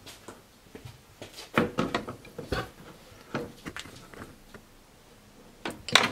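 Scattered light knocks and clunks of metal tools and parts being handled, with a louder run of clicks and knocks near the end.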